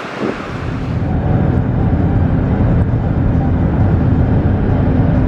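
A car driving along a road, heard from inside the cabin: a steady low rumble of road and engine noise that builds over the first couple of seconds, then holds. It cuts in abruptly from a moment of beach wind at the very start.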